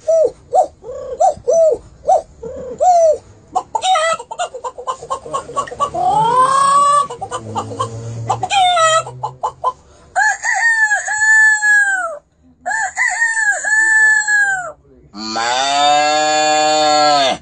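A man imitating chickens with his voice: a run of short clucks, then longer rising and falling calls, and a long, loud crow-like call near the end.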